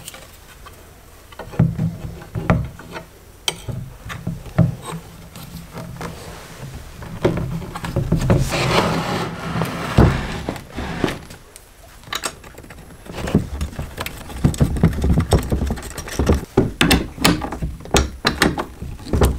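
Knocks and clatter of a plastic intake manifold and an idle control valve being handled on a wooden workbench, with a few seconds of scraping around the middle as the manifold is turned over. In the last few seconds a socket ratchet clicks rapidly as the valve's bracket bolts are tightened.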